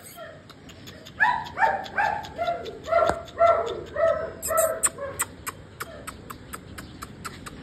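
German shepherd puppy yelping, a quick run of about a dozen short, high yelps at two to three a second that starts about a second in and stops past the middle.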